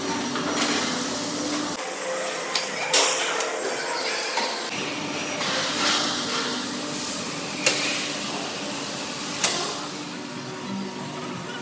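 Seafood-processing plant machinery running with a steady hum and hiss, broken by several sharp metal clanks. The loudest clank comes about eight seconds in.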